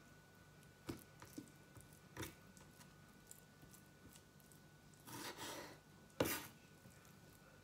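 Chef's knife cutting raw beef on a wooden cutting board: a few faint knocks of the blade on the board, a short scrape about five seconds in, then one sharper knock.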